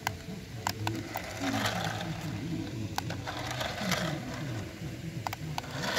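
Small electric motor and gears of a toy race car whirring in spurts as it drives, with a few sharp plastic clicks.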